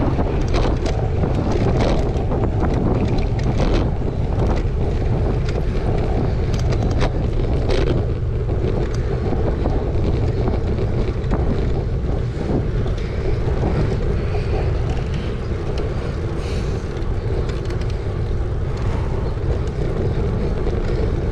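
Wind buffeting a moving action camera's microphone: a steady low rumble, with scattered sharp clicks through the first several seconds.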